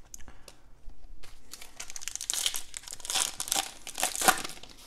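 A Donruss football card pack's foil wrapper being torn open and crinkled by hand. It starts with a few light clicks of cards being handled, and the crackling builds from about a second in to its loudest near the end.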